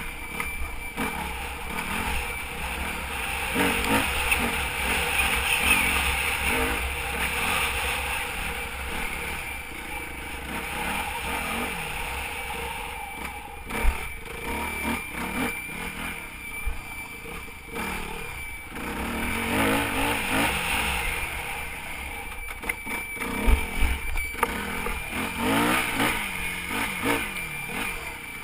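Yamaha WR250F's single-cylinder four-stroke engine revving up and easing off over and over while being ridden off-road, with wind noise on the microphone and a few sharp knocks. A steady high whistle sits underneath, which the owner reports as an unexplained whistling noise.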